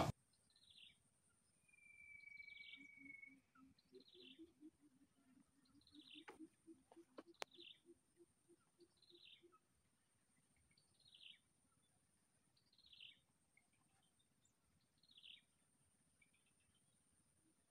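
Faint outdoor ambience: a bird repeating a short, high, falling chirp every second or two, over a faint steady high whine.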